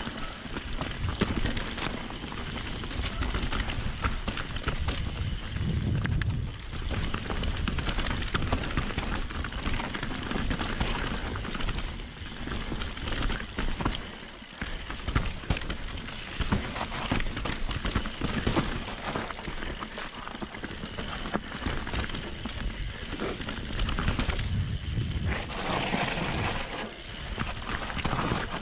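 Mountain bike being ridden down a rough trail: tyres running over dirt and stones and the bike rattling, with a dense stream of clicks and knocks over a steady rough noise and low rumble.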